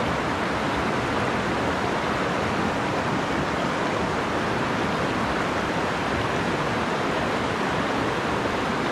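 A rocky mountain stream rushing steadily over shallow rapids.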